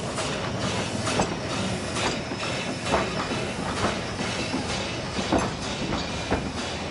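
Narrow-gauge steam locomotive Dolgoch and its wooden carriages moving slowly past, a steady rumble with sharp clacks about once a second.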